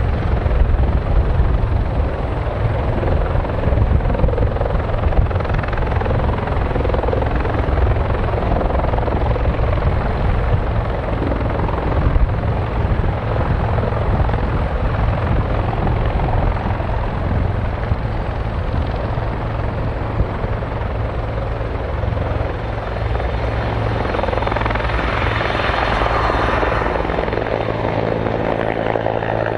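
Bell CH-146 Griffon military helicopter running close by, a steady low rotor thump with turbine noise over it. A brighter rushing sound swells a few seconds before the end and then eases.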